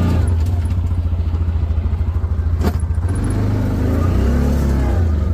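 Side-by-side UTV engine running as the machine drives through snowy pasture, heard from inside its cab. The engine note shifts up and down about three to four seconds in, and there is one sharp knock near the middle.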